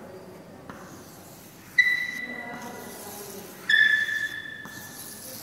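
Chalk squeaking on a blackboard as circles are drawn: two sudden high-pitched squeals, each about a second long, the second slightly lower in pitch, with faint chalk scratching between them.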